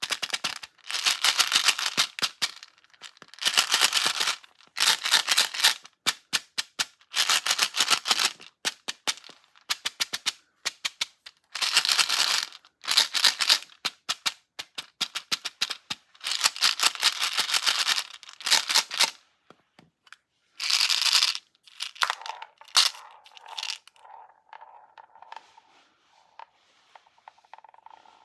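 Crunchy, crackling bursts of candy-filled slime being cut, each lasting about a second and repeating with short pauses. A fainter, steady tone comes in during the last few seconds.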